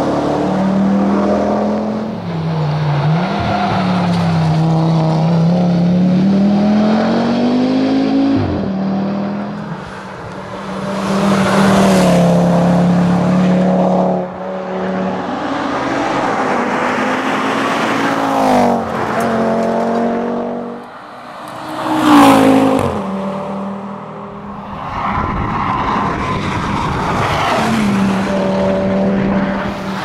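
Audi TT RS rally car's turbocharged five-cylinder engine driven hard, revving up and falling away through gear changes and lifts of the throttle as it passes by several times. The loudest pass comes a little past two-thirds of the way through.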